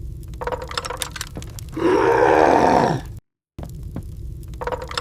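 Snow leopard growling: one loud growl about two seconds in, lasting just over a second and falling in pitch at the end. It cuts off abruptly, and sharp clicks start again over a low rumble.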